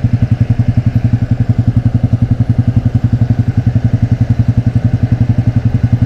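Motorcycle engine with an open exhaust running at a steady, even beat: a loud, rapid pulsing that neither rises nor falls.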